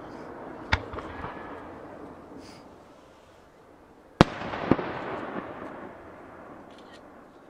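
Aerial firework shells bursting: a sharp bang about a second in, then the loudest bang a little after four seconds followed half a second later by another. Each bang fades slowly in a long rumble.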